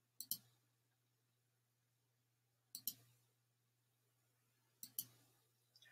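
Three faint pairs of computer mouse clicks, about two and a half seconds apart, over near silence: pages being clicked forward.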